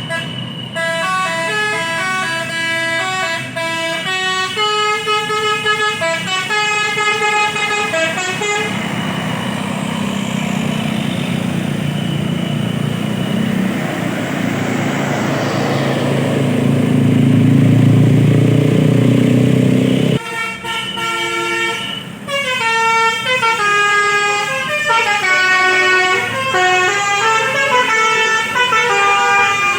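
Tour bus 'telolet basuri' musical horns playing quick tunes of stepped notes. In the middle stretch the horn gives way to the bus's engine and road noise, which swell loudest as it passes. The horn melodies resume after a break about twenty seconds in.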